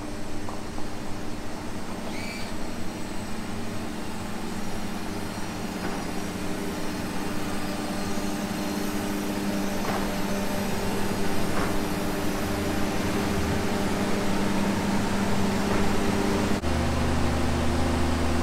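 Four Yamaha 300 four-stroke outboards idling together, a steady drone with several engine tones, as the boat moves slowly. A sudden heavier low rumble comes in near the end.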